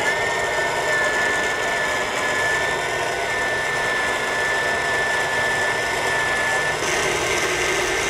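Electric blender running steadily, crushing frozen pineapple and banana with komatsuna into a smoothie, with a steady high motor whine that drops out about a second before the end while the blending runs on.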